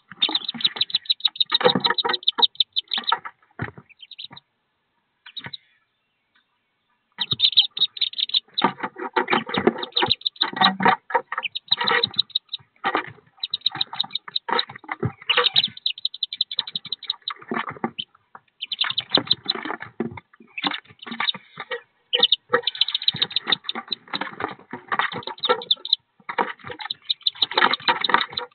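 Wood duck ducklings peeping and scrabbling about inside a wooden nest box, many quick high peeps over scratchy rustling. It falls quiet for about three seconds a few seconds in, then resumes.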